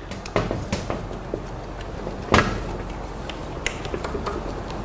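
Rubber sealing gasket being pressed by hand into the rim of a stainless steel pressure cooker lid: scattered light clicks and rubbing, with one louder knock about halfway through.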